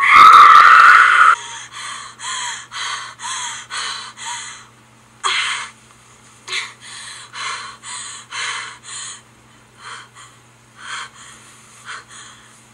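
A woman's loud, sharp gasp, then quick panting breaths, about two and a half a second, that grow sparser and fainter towards the end: the breathing of someone jolted awake in fright.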